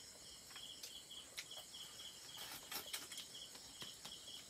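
Crickets chirping in short runs of rapid, even pulses, with a few faint clicks and taps scattered through.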